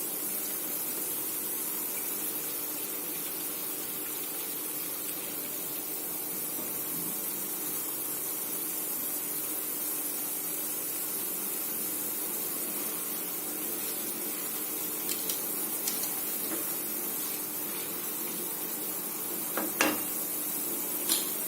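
A pan of masala water heating on a stove hob, giving a steady hiss with a faint steady hum underneath. A few light clicks come near the end.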